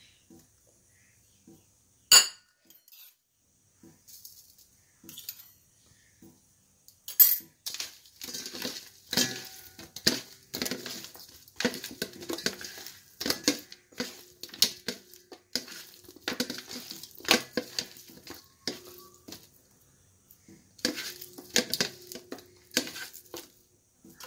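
Stainless steel bowl clinking and scraping as sardines are mixed by hand with chilli powder: one sharp clink about two seconds in, then a long run of irregular clinks and scrapes of fish and fingers against the steel from about seven seconds in.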